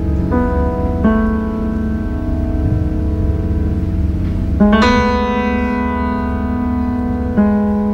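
Slow piano music: sustained chords, a new one struck every one to three seconds, the loudest near five seconds in.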